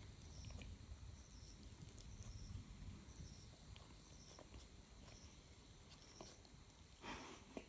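Faint sounds of a child eating stir-fried noodles (chow) with chopsticks: soft slurping and chewing with small mouth clicks, and a louder slurp about seven seconds in.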